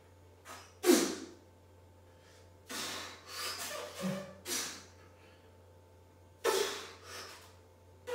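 Forceful breathing of a man straining through heavy overhead barbell presses: a sharp, loud exhale about a second in, a cluster of quicker breaths in the middle, and another sharp exhale near the end. A faint steady low hum runs underneath.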